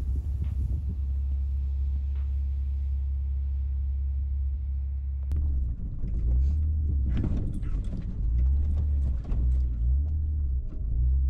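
Strong wind buffeting the microphone as a steady low rumble. About five seconds in it cuts to the lifted Honda Ridgeline driving slowly over a rough dirt trail: an uneven, pulsing rumble with frequent knocks and rattles as the truck jolts over the bumps.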